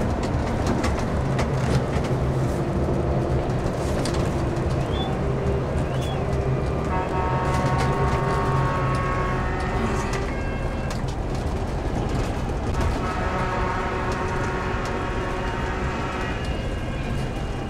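Volvo coach's diesel engine running steadily as it drives along, heard from inside the cab with road noise. Some higher steady tones come and go around the middle and again near the end.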